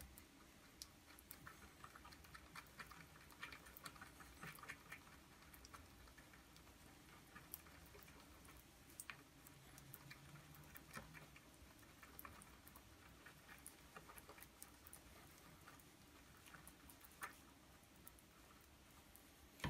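Near silence with faint, irregular clicks and ticks from a wooden stick stirring two-part epoxy on a board.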